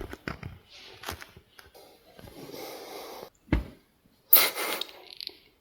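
Rustling and handling noises in a small room, with a soft thump about midway and a loud, breathy burst like a sharp exhale a little later.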